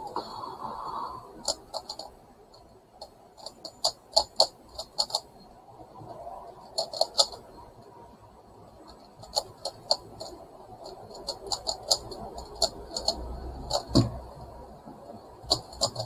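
A megaminx twisty puzzle being turned quickly by hand: bursts of rapid plastic clicking and clacking as its faces are rotated, in clusters of several turns with short pauses between. A dull knock about 14 seconds in.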